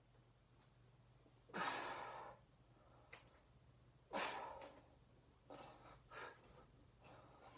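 A man's heavy breaths out from the effort of a 20 kg kettlebell bent press: two strong exhales, about one and a half and four seconds in, then a few shorter, softer breaths.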